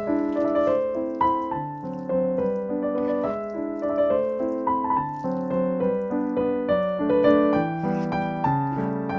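Background piano music: a gentle melody over chords, notes changing every half second or so.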